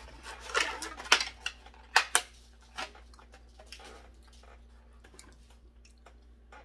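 A styrofoam takeout container being handled: a few sharp clicks and crackling creaks in the first two seconds, then only faint small ticks.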